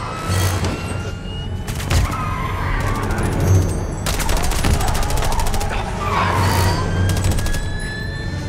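Several bursts of rapid automatic gunfire, each lasting about a second, over a dramatic orchestral film score.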